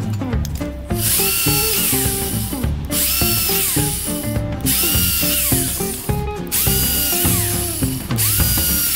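Corded electric drill boring holes through a steel tube, running in repeated bursts of about a second and a half with short pauses between, its motor whine rising as each burst starts and falling as it stops.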